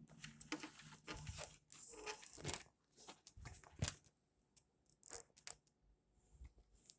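Irregular crunching and rustling noises in uneven bursts, with a few sharp clicks.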